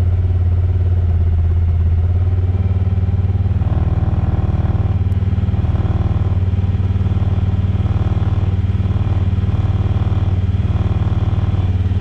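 Vehicle engine running at a steady pace while driving, a constant low hum.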